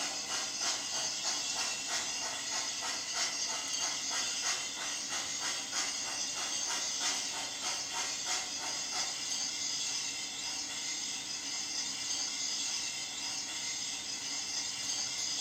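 Steam exhaust chuffs with hiss from the sound system of an MTH Climax geared logging locomotive model running on its track: a rapid, even chuffing that grows less distinct after about ten seconds as the engine moves away.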